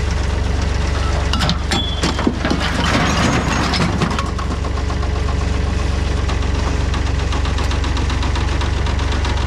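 A vehicle engine idling steadily with a strong low rumble, with a stretch of clattering noise about two to four seconds in.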